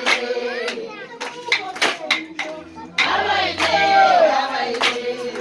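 Handclapping in an uneven beat, about two claps a second, with a loud sung phrase from the singers about three seconds in, during a dance.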